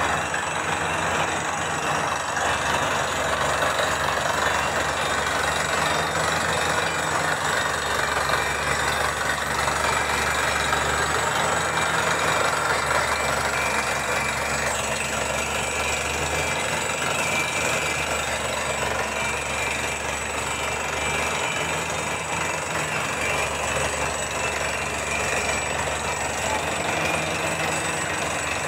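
Truck-mounted water-well drilling rig drilling with compressed air, blowing rock dust out of the borehole. It makes a steady, loud mechanical din of engine and rushing air, with no change throughout.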